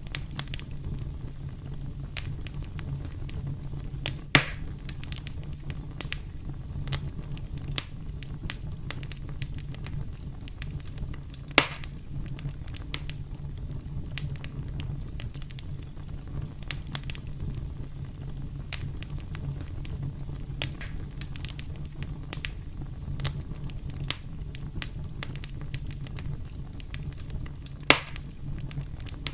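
Wood campfire crackling, with a steady low rumble of the flames, constant small crackles, and three louder pops: about four seconds in, near twelve seconds, and near the end.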